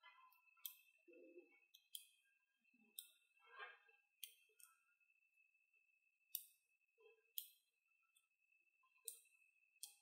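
Small magnetic balls clicking together as they are snapped one at a time onto a chain: about nine faint, sharp clicks, roughly one a second.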